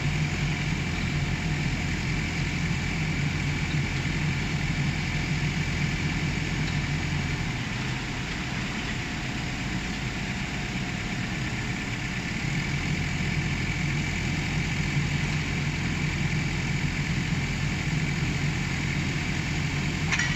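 Excavator engine running steadily, its low hum easing off for a few seconds in the middle and then returning.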